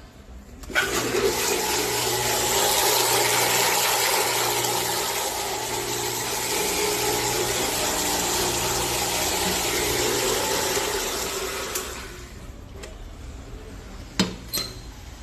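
Metvisa industrial blender running with liquid in the jar: a steady motor hum under churning water. It starts about a second in and winds down about twelve seconds in, followed by a couple of sharp knocks.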